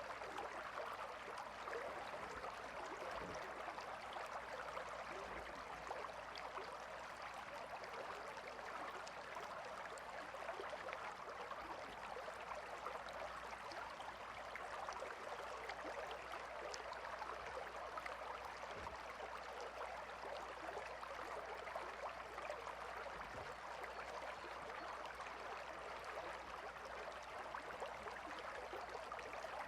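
Calm river flowing, a steady, even rush and babble of water.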